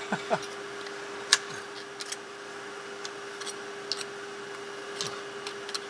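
Light metallic ticks and scrapes of a screwdriver prying at a connecting rod cap and its bearing on a Toyota 5S-FE crankshaft. The bearing is heat-welded to the cap after the engine was run without oil. One sharper click comes about a second in, over a steady hum.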